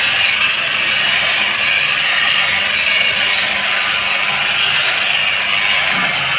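Electric machine polisher running steadily against a car's window glass, polishing it as the preparation stage before a glass coating goes on.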